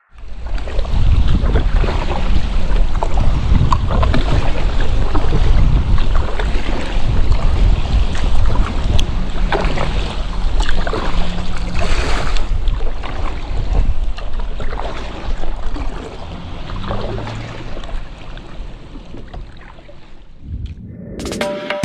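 Wind buffeting the microphone over water lapping and splashing around a kayak on the sea, with short splashes scattered through. The wind eases in the second half.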